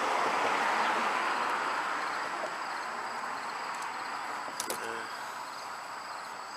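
Outdoor background noise: a steady rushing haze that slowly fades, under a thin, steady, high insect-like tone, with a few small clicks about four and a half seconds in.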